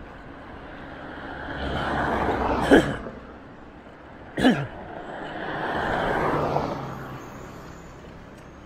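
Road vehicles passing: the traffic noise swells and fades twice, with two short whooshes falling in pitch about two seconds apart.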